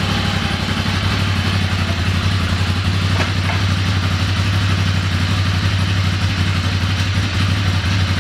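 Ducati Monster's V-twin engine idling steadily, with two faint clicks about three seconds in.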